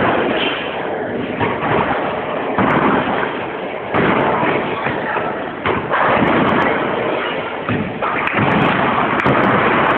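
Bowling alley din: bowling balls thudding down onto the wooden lanes and rolling, with sudden loud thuds several times over a steady roar of the hall.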